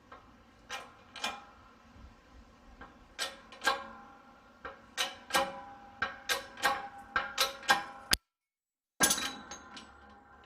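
Hydraulic press loading a steel bushing sleeve in a lower control arm: a string of sharp metallic clicks and pings that ring on, irregularly spaced and getting louder partway through, as the sleeve is forced to break free. The sound cuts out for a moment near the end.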